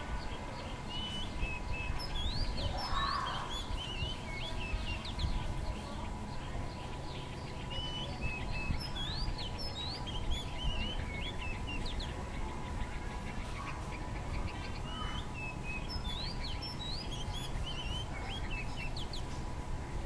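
Bulbul chirping: a steady run of short, sweeping whistled notes that rise and fall, repeated throughout.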